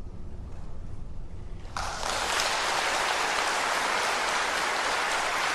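A low rumble, then about two seconds in a steady hiss of water starts abruptly and runs on evenly.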